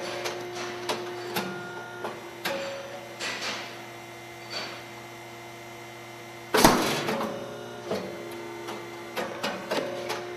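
Rice cake popping machine with an 85 mm round mold running through a cycle: a steady motor hum with metallic clicks and clacks from the mold and ejector arm. About two-thirds of the way through comes one sudden loud pop with a short hissing tail as the heated mold releases and the rice cake puffs.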